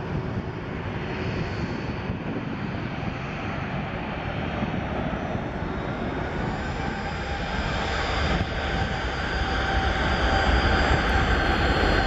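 Airliner's jet engines, a steady rush growing louder as the aircraft comes closer, with a high whine coming in about halfway through.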